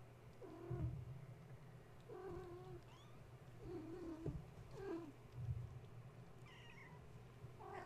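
Domestic cats giving about five short meows and chirps, most of them low, with one higher squeak near the end, among soft thumps of play.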